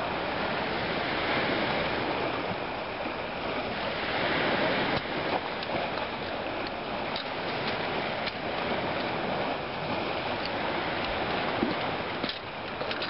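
Steady wash of lake water, with a few short splashes as a hooked steelhead thrashes at the surface.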